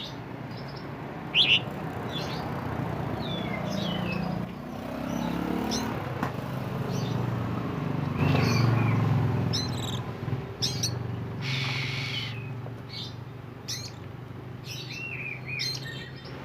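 Oriental magpie-robin singing: short bursts of varied chirps and whistles with gaps between them, a few notes sharp and loud, over a steady low background rumble.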